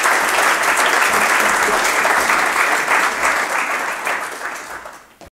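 Audience applauding: dense clapping from many hands, steady, then thinning out near the end before cutting off suddenly.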